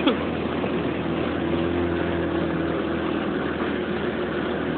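Motorboat engine running steadily under way: a constant low hum under an even rush of noise.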